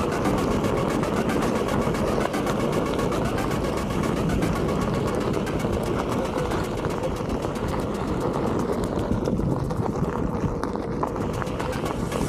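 Onewheel GT electric board rolling fast over a dry dirt trail: a steady, noisy rumble of the tyre on the ground.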